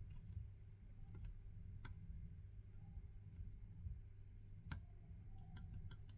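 Faint, sparse small metallic clicks and ticks of a lock pick working the pin stack inside an Elzett Tutius pin-tumbler padlock, a few scattered ticks with a quick little cluster near the end, over a low steady hum.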